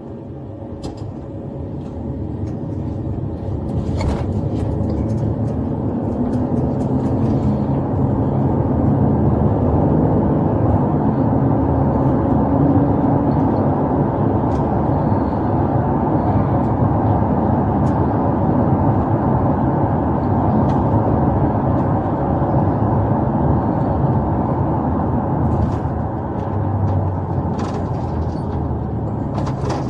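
Road and engine noise inside a moving police patrol car, building over the first few seconds as the car picks up speed, then holding steady.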